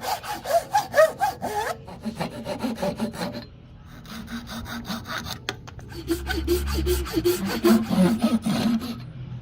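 Hand saw cutting wood in rapid back-and-forth strokes, about five a second, easing off for a couple of seconds midway and then picking up again.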